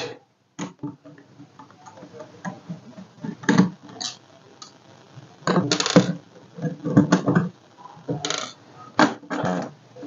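A small screwdriver unscrewing the screen-hinge screws of a Dell Vostro 3400 laptop, then fingers working the metal hinge loose: scattered light clicks, taps and scrapes, with a few louder clatters in the second half.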